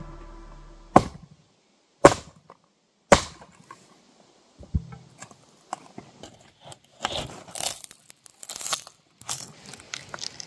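Sledgehammer blows on a test piece of plywood and glass-fibre composite: three sharp strikes about a second apart, followed by a run of smaller irregular cracking and crunching sounds.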